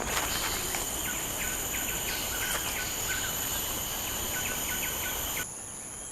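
Forest insects keeping up a steady, high-pitched drone of several held tones, with short bird chirps repeating over it. Near the end the drone drops in level and changes pitch abruptly.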